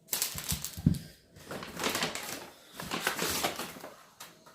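Plastic packaging and a paper bag rustling and crinkling as meal-kit ingredients are handled and taken out, in a series of irregular crackles and small knocks for about four seconds.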